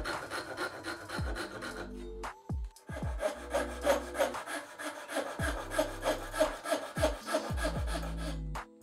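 Japanese handsaw sawing wood in quick repeated strokes: first through a thin strip of wood, then, after a short break, cutting kerfs into the end of a tenon to take wedges. Background music with a low bass runs underneath.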